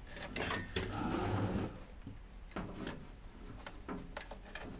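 A few sharp clicks and knocks, with a rumbling scrape about a second in, as small objects are handled and moved.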